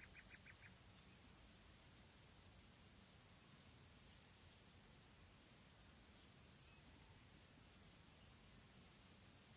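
Faint crickets chirping, evenly about twice a second, over a steady high insect trill.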